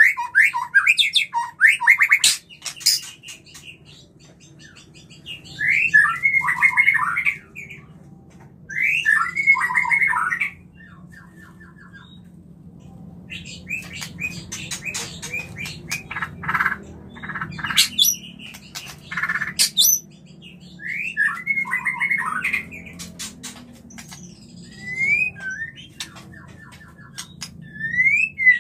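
White-rumped shama (murai batu) in breeding condition, singing. Phrases of rich gliding whistles come every few seconds, and a long stretch of sharp clicking, chattering notes falls in the middle.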